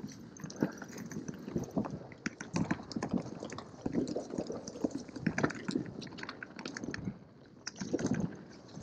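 Mountain bike riding down a dirt forest singletrack: irregular knocks and rattles as the tyres hit roots and bumps, easing briefly about seven seconds in.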